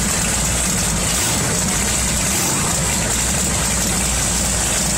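Several big cruiser motorcycle engines running steadily at low speed as the bikes pull slowly out one after another.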